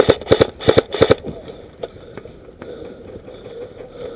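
An airsoft gun firing a quick string of about eight sharp shots in the first second or so, then only a few faint clicks.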